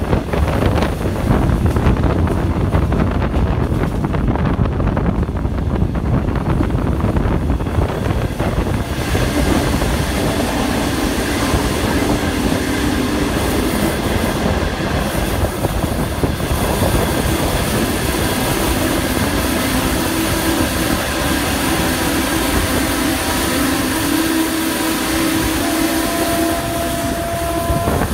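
Running noise of a green-liveried Chinese passenger train heard from an open window: wheels rumbling on the rails. From about nine seconds in, as the train runs through a tunnel, the sound turns fuller and brighter, with a steady whine over the rumble.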